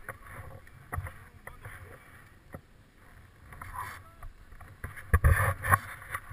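Wind rushing over a head-mounted camera's microphone as a paraglider pilot on skis moves down the snow. Skis scrape over the snow, with scattered knocks and a cluster of loud bumps a little after five seconds in.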